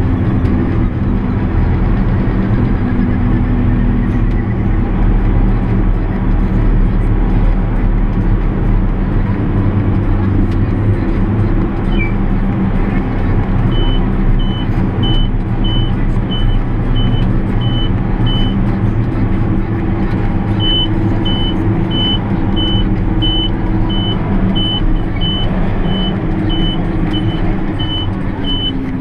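JCB Fastrac 8310 tractor driving on the road, heard inside the cab: a steady engine and drivetrain drone. From about halfway a short high electronic beep repeats about twice a second, with a brief break.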